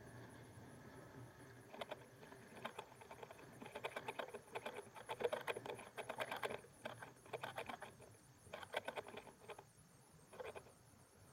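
Faint, quick clicking and rattling in uneven bursts from a homemade camera trolley riding down a cable line, loudest in the middle and dying away near the end as it comes to rest.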